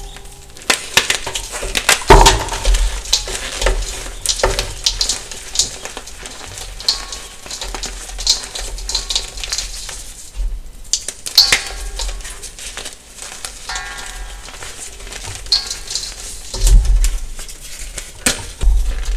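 A soft block of gym chalk being crushed and crumbled: a dense run of crisp crackling crunches, with a couple of heavier thumps, one about two seconds in and one near the end.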